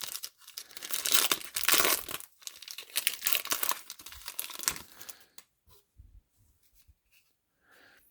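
A trading card pack's wrapper being torn open and crinkled: several seconds of ripping and rustling, dying away to a few faint ticks after about five seconds.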